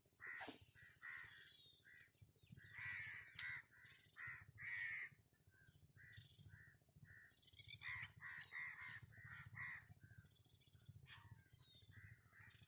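Birds calling outdoors: a string of short, repeated calls, coming in two runs, one about one to five seconds in and another around eight to ten seconds in.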